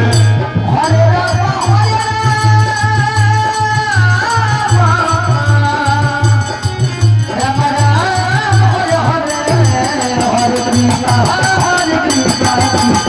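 Devotional kirtan music: a gliding melody line over a fast, steady drum beat, with jingling hand percussion keeping a rapid rhythm.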